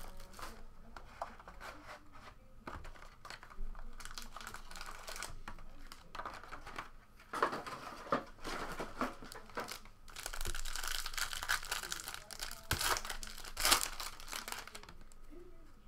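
Gold foil trading-card pack wrappers crinkling and being torn open by hand, in irregular rustling bursts that are loudest about halfway through and again near the end.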